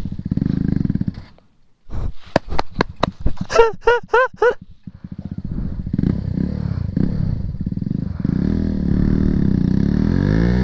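Sport motorcycle engine revving hard under load while the stuck bike's rear tyre digs into loose stones and soil. A short burst of revs and a brief pause come first. A run of clicks and knocks from stones clattering and scraping follows. Then comes a long steady rev through the second half.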